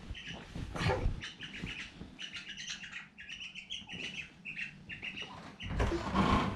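Myna calling in a rapid series of short, repeated chirps. A couple of brief low thumps, the loudest about six seconds in.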